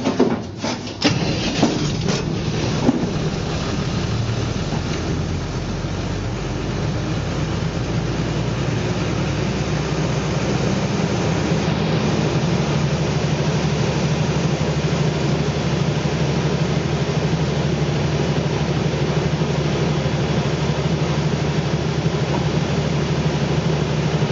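Deutz diesel engine of a 150 kVA silent generator set starting: a few sharp knocks in the first seconds as it cranks and catches, then the engine running up to its governed speed of about 1500 rpm and settling into a steady run.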